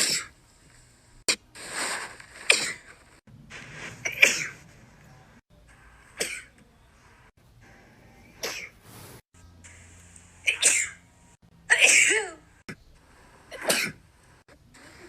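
A woman with a nasal feeding tube sneezing uncontrollably, about ten sneezes in a row one to two seconds apart. The tube in her nose is what sets off the sneezing fit.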